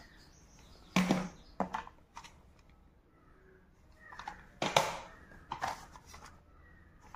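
Plastic audio cassette cases clacking together as they are handled and sorted, a couple of sharp clatters about a second in and a busier run of them around the middle.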